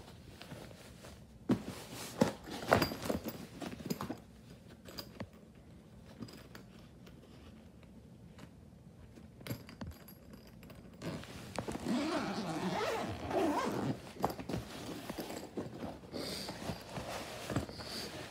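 The zipper of a hard-shell carrying case being pulled open in one long continuous pull of a few seconds, a little past halfway through. Before it come a few knocks from the case being handled.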